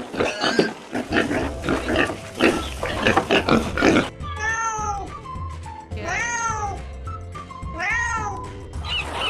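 A cat meowing three times, each meow rising and then falling in pitch, after about four seconds of harsh, rapid, noisy sounds. A steady low hum runs underneath.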